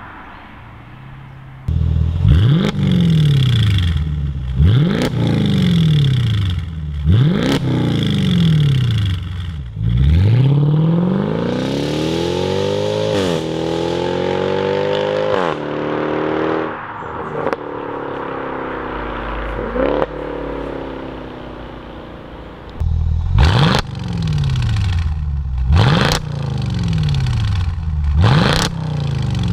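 Mercedes SLK55 AMG's 5.5-litre V8 through a custom valved stainless exhaust with the flaps open, revved in repeated sharp throttle blips, each rising fast and dying away over a second or two. Around the middle comes one longer pull that climbs and then falls away. The blips start again near the end.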